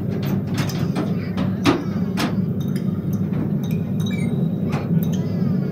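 Steady low hum with scattered sharp clicks and knocks, heard inside the dark tunnel of a stopped mine-train ride.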